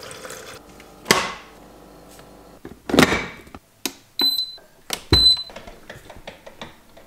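A drip coffee maker being set going. Poured water ends right at the start, two knocks follow about a second and three seconds in, and then two presses on the control panel each give a click and a short high beep, about a second apart.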